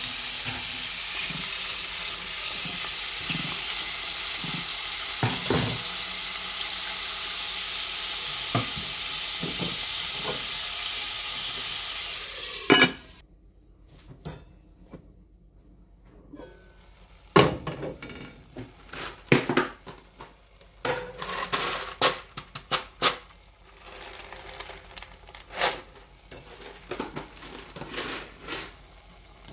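Chopped bell peppers and carrots sizzling steadily in oil in an old pan, with a few utensil knocks. About twelve seconds in, a loud clank and the sizzle cuts off; after a quiet few seconds, a utensil knocks and scrapes irregularly against the pan over faint sizzling.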